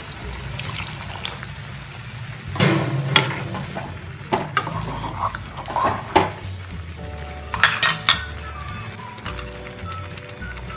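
Hot water poured into a kadhai of sambar, then a steel ladle stirring the simmering, sizzling mix, knocking against the pan several times, with a quick run of sharp clinks about eight seconds in.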